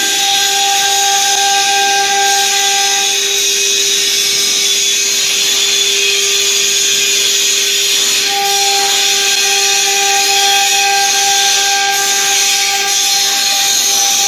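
Acctek AKS2030 CNC stone engraving machine running: a loud, steady hiss with a steady whine beneath it. About three seconds in, one higher tone in the whine drops out, and it returns about five seconds later.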